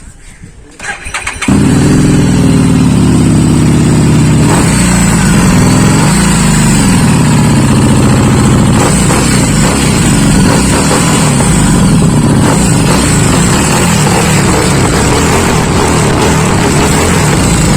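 Harley-Davidson Street 750's V-twin engine cranking and starting about a second in, then running loud. The throttle is blipped a few times, the pitch rising and falling between about five and seven seconds in, before it settles back to a steady idle.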